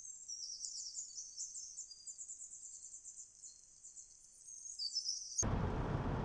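Rapid, continuous high-pitched chirping in repeated short phrases, with nothing lower underneath. A little over five seconds in it cuts off abruptly and is replaced by the steady, louder road and engine noise of a moving car heard from inside the cabin.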